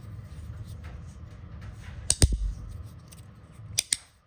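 Magnetic fidget slider with G10 and Micarta plates being worked by hand, its plates clicking as they snap home on the three center magnets. A sharp double click with a low thud about two seconds in is the loudest, and two quick clicks come near the end.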